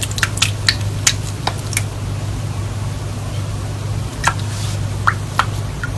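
A cat pawing at water in a small pet bowl: a quick run of taps and small splashes, then a few more near the end, over a steady low hum.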